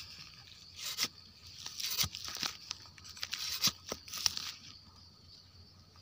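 Dry leaf litter crackling and rustling in irregular bursts as the forest floor is disturbed around a mushroom, dying away after about four and a half seconds. A steady high insect buzz runs behind.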